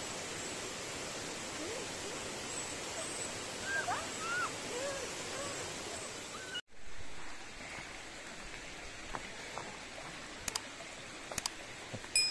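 Steady rushing of a forest stream and small waterfall, with a few short chirping calls partway through. After an abrupt cut, a quieter trickle of shallow water over rocks, with a few light clicks near the end.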